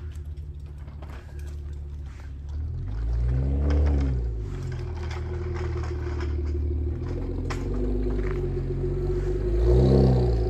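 Car engine running, revved up and let fall back twice, about four seconds in and again near the end.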